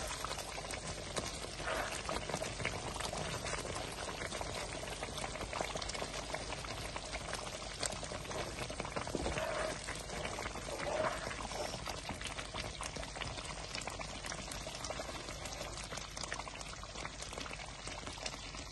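Thick butter chicken gravy bubbling and popping in a pan while a spatula stirs it.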